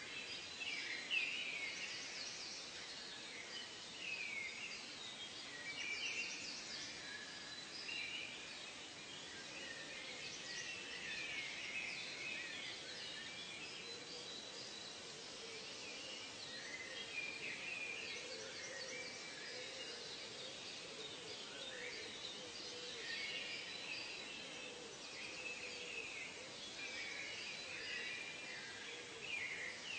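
Forest ambience: many birds call and chirp over one another continuously, with short whistled and trilled notes. A faint, steady high tone runs under them.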